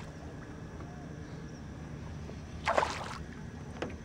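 Water splashing at the surface beside a small aluminium boat as a hooked smallmouth bass thrashes. One brief burst comes a little under three seconds in, over a low, steady rumble.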